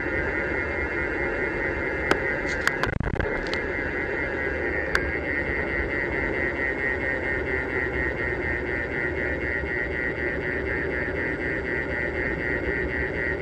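Steady wind and road noise on a bicycle-mounted camera riding along a paved road, with a high, even whirr throughout. A few sharp knocks come about two to three and a half seconds in, and one more near five seconds.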